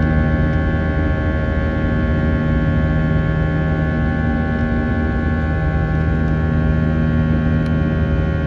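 Steady airliner cabin noise aboard an Airbus A321: a constant low rumble carrying several unchanging hum tones from the engines and air systems.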